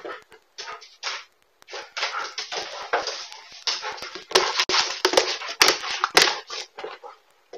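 Belgian Malinois scrambling after a ball on a wood floor, heard through a pet camera's microphone: claws scrabbling and skidding, with paws and ball knocking. The clatter is busiest from about two seconds in and includes a few sharp clicks near the end.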